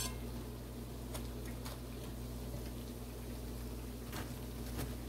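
Festival dumplings frying gently in oil in a cast iron skillet on lowered heat: a faint steady hiss with a few soft ticks, over a steady low hum. A metal clink of a fork against the pan comes right at the start.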